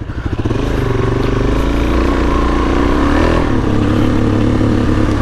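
Suzuki DRZ400S single-cylinder four-stroke dirt bike engine picking up throttle and then running steadily under way, its pitch shifting about three seconds in.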